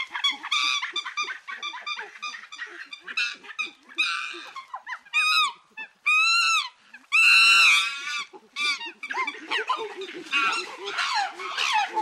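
Chimpanzees calling: a quick run of short hooting calls, then a few louder screams that rise and fall in pitch around the middle, and a dense chorus of overlapping calls near the end.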